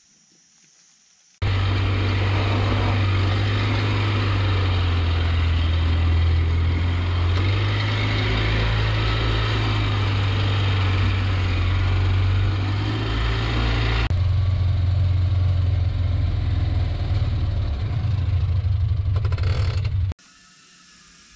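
Side-by-side utility vehicle's engine running as it is driven along a trail, heard close from a camera mounted on the vehicle: a steady low drone that shifts in pitch a couple of times. It cuts in suddenly about a second and a half in and cuts off suddenly near the end.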